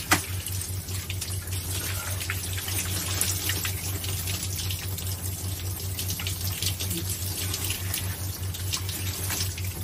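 Handheld shower head spraying water over a person's head and body, the water splashing steadily in a small shower cubicle, with a steady low hum underneath.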